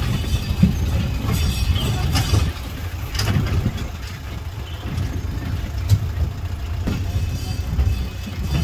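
Small tourist road train on the move: a steady low engine and road rumble, with a few sharp rattles and knocks from the carriage scattered through it.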